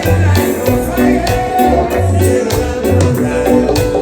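Reggae backing music with a repeating bass line, sustained chords and steady drums, between sung lines.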